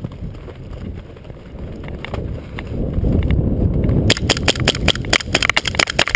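Low rumble of movement on a body-worn camera, then from about four seconds in a rapid, irregular string of sharp cracks from airsoft guns firing.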